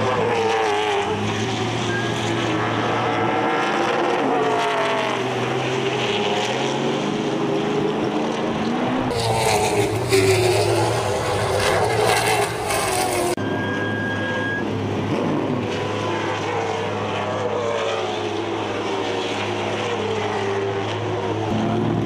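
Late model stock cars' V8 engines running at speed on a short oval, several at once, their pitch rising and falling as they lap and pass. A louder, brighter stretch runs for about four seconds, starting around nine seconds in.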